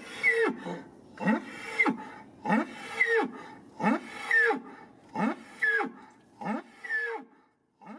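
An animal calling over and over in a steady rhythm: six loud calls about a second and a quarter apart, each sweeping up in pitch and then dropping away.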